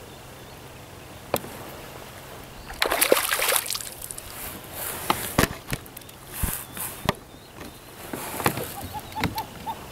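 A hooked trout splashing and thrashing at the surface beside a kayak, loudest about three seconds in, with further splashes and scattered sharp knocks as it is played close to the boat.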